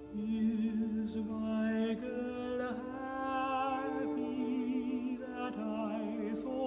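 Classical art song: a man singing slow, held notes with vibrato over sustained string chords.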